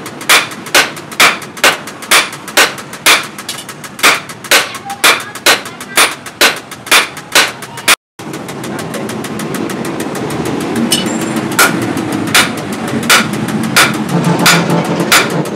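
Hand hammer and sledgehammer striking hot steel on an anvil in turn, about two blows a second: two smiths forging a hammer head from round bar. About halfway through the sound drops out for a moment, then the blows go on over a steady hum.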